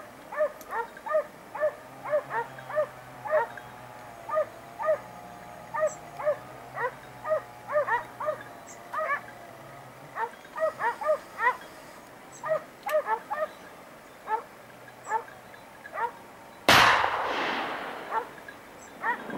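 Hunting dogs baying on the trail of a wild boar: a long run of short, pitched yelping barks, about two a second. Near the end a single loud gunshot rings out and echoes, dying away over about two seconds.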